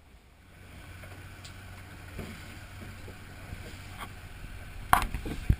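Small dive boat's motor running steadily with a low hum. A sharp click and then a louder knock come near the end.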